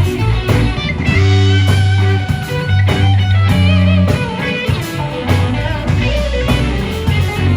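Live blues-rock band playing: an electric guitar lead with bent, wavering notes over bass guitar and drums.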